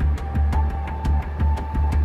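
Background soundtrack music: a low pulsing beat about twice a second under a held high note, with light ticking percussion.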